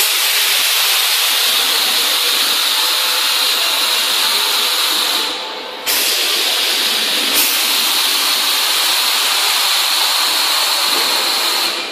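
A loud, steady hiss that dips briefly about five seconds in, comes back abruptly, and cuts off near the end.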